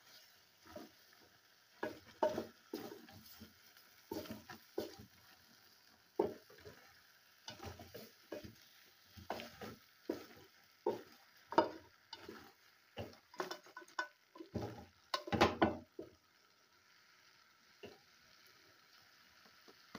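Wooden spatula stirring pieces of wet-fry chicken in a metal pot: irregular scrapes and knocks against the pot, over a faint sizzle of the stew cooking. The stirring stops a few seconds before the end.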